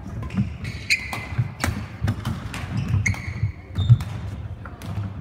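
Badminton play on a sports hall court: irregular sharp racket hits, footfalls and short shoe squeaks on the floor, the loudest a thump about four seconds in.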